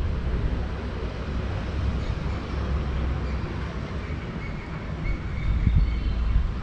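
Distant city traffic: a steady low rumble, with a few faint, short, high-pitched tones in the second half.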